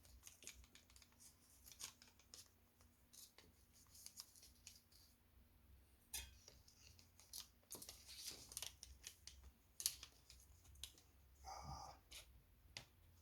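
Faint, scattered clicks and scratchy scrapes of small handwork with wires and tools, over a faint steady hum.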